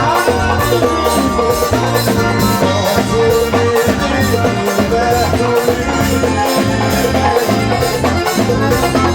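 Band music with a quick, steady percussion beat over a repeating bass line.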